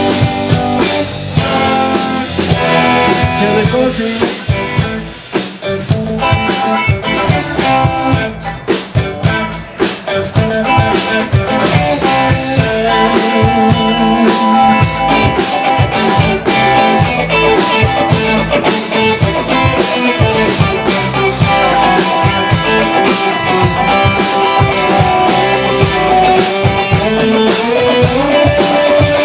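Live blues band playing an instrumental passage on electric guitars, bass guitar and drum kit.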